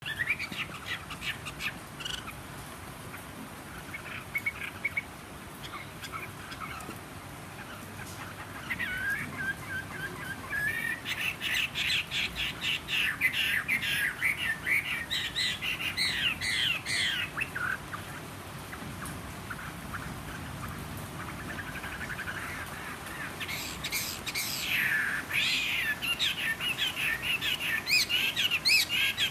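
Chinese hwamei singing. Softer, scattered notes come first, then loud runs of rapid, varied notes and sliding whistles from about ten seconds in and again near the end. Its voice is slightly hoarse, as the owner notes.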